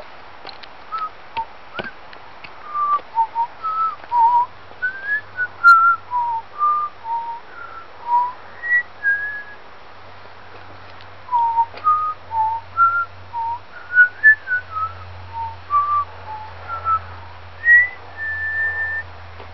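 A person whistling a tune: short, clear notes stepping up and down in pitch, in two phrases with a short pause about ten seconds in. A faint low hum runs underneath.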